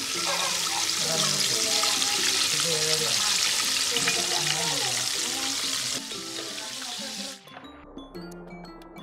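Coated chicken pieces deep-frying in hot sunflower oil, a steady dense sizzle under background music. The sizzle cuts off suddenly about seven seconds in, leaving only the music with a few chime-like notes.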